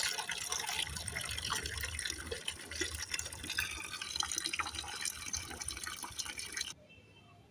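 Water running and splashing into a pot as it is filled, with many small splashes; it stops abruptly near the end.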